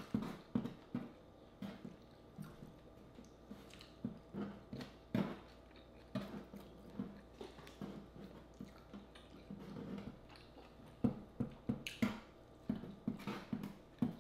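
Close-up mouth sounds of people eating fried frog legs: chewing and lip smacking, a string of short irregular clicks that come faster near the end.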